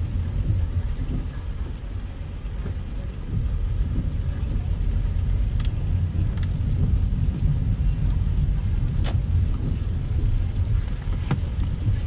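A car driving on a rain-soaked road, heard from inside the cabin: a steady low rumble of engine and tyres on the wet surface. A few sharp clicks stand out, one each at about six, nine and eleven seconds in.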